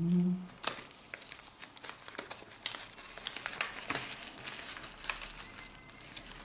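Paper rustling and crinkling as a folded diamond parcel paper is unfolded by hand, with many small irregular crackles and handling clicks. A brief hum from a voice comes at the very start.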